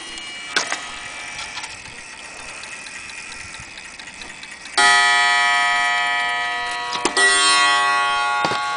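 The coiled wire gong of a vintage wooden mantel clock is struck twice, about two seconds apart. Each stroke rings on as a chord of steady tones that slowly fades. There is a light knock about half a second in.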